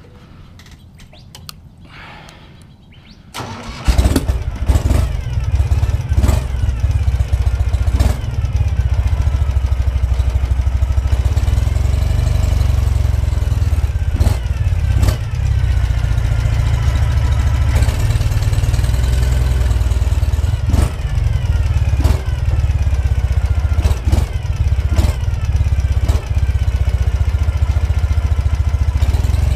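Ural motorcycle's air-cooled boxer-twin engine starts about three and a half seconds in and then runs, its pitch rising and falling at times, with occasional sharp clunks.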